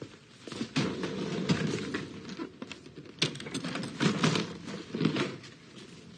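Hard-shell suitcase being handled and opened: a run of irregular knocks and clatters from the case and its contents, busiest in two stretches.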